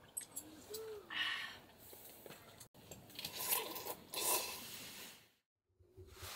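A few short rustling and scraping sounds, broken by brief drop-outs.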